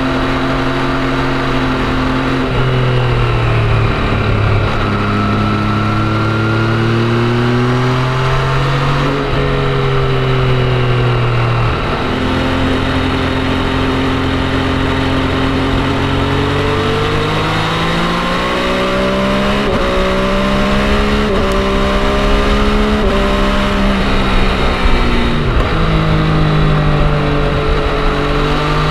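MV Agusta Brutale 800's three-cylinder engine pulling hard while riding. Its pitch climbs and drops repeatedly, with several sudden steps down as it shifts gears and comes on and off the throttle, over a steady rush of wind and road noise.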